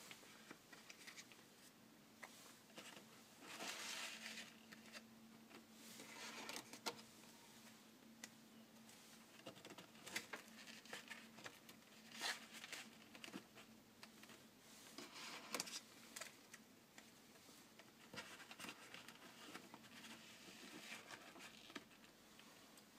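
Faint handling sounds of plastic cards being slid into and out of a Card Rivet leather wallet: soft scrapes and rustles with occasional light clicks.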